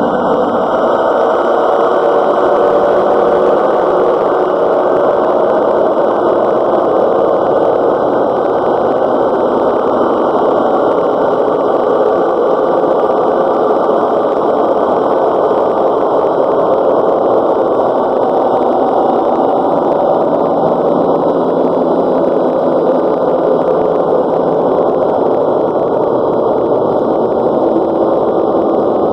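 Loud, steady, muffled noise with no clear beat or tone, its higher sounds cut away.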